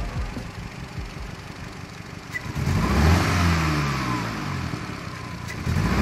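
Skoda Octavia's 1.8 TSI turbocharged four-cylinder engine idling, then blipped twice, about three seconds in and again near the end, the revs climbing quickly and falling back each time. The engine is misfiring, on cylinders 2 and 3, even with freshly fitted coils.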